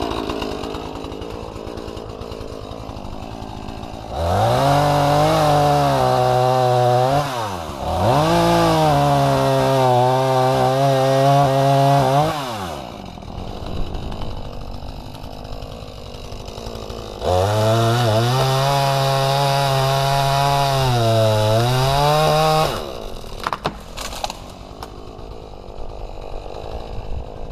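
Two-stroke chainsaw felling a small Chinese tallow tree. It runs in three long stretches at full throttle under load, with the revs dipping briefly between the first two, and drops back to a lower idle between cuts. A couple of sharp snaps come near the end.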